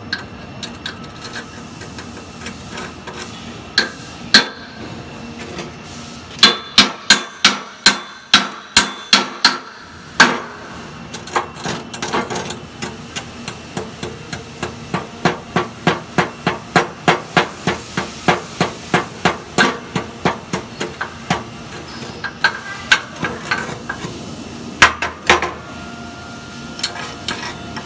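A hammer striking welded steel rebar in long runs of quick blows, about three a second. The first run, a few seconds in, is the loudest. Lighter, even strikes follow, then a few hard blows near the end.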